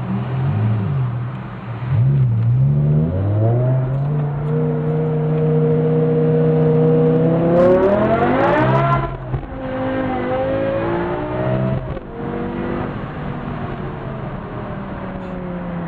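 BMW M car engine with an aftermarket exhaust being revved while parked: two short blips, then held at a steady raised rev for a few seconds. It climbs higher to a peak about nine seconds in, drops off sharply, gives one smaller rev, and settles back to idle.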